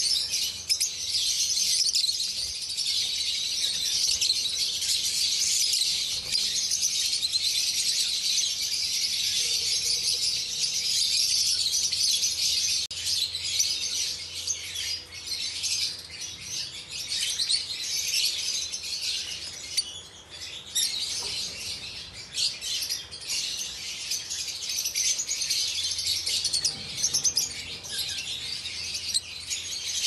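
Lovebirds chattering: many high-pitched chirps overlapping in a continuous chorus, thinning out briefly about twenty seconds in.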